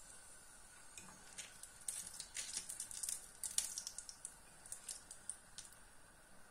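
Hot oil crackling and popping in a frying pan as food touches it: a dense run of sharp pops from about two seconds in that thins out after five seconds.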